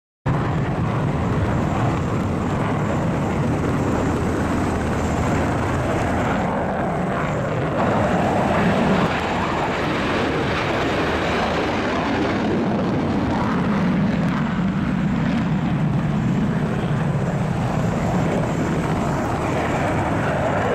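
Military aircraft engines running loud and steady without a break.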